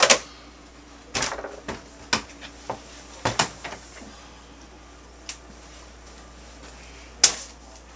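A desk telephone handset hung up with a sharp clack. Then a run of knocks, bumps and clatters as someone gets up from the desk and moves about a small office, with one more sharp knock near the end.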